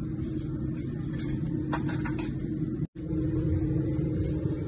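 Steady low hum of an airliner cabin in flight, with a few faint rustles in the first half. The hum drops out for an instant about three seconds in, then resumes.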